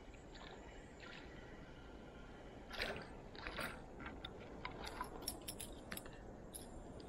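A small hooked perch splashing and thrashing at the water surface as it is reeled to a packraft on a spinning rod: a burst of splashing about three seconds in, then a quick run of short flicks and drips as it is swung out of the water.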